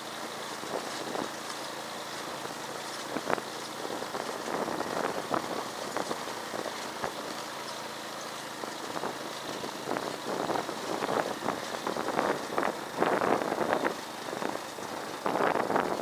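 Motorcycle running at low speed on a rough dirt track, its engine a steady background under frequent knocks and rattles from the bike jolting over the bumps, which come thicker and louder in the second half.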